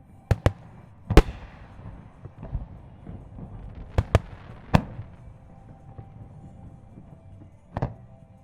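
Aerial firework shells bursting in an irregular series of about eight sharp booms, the loudest about a second in, trailing off over the next second, with a tight cluster around the middle and a last boom near the end.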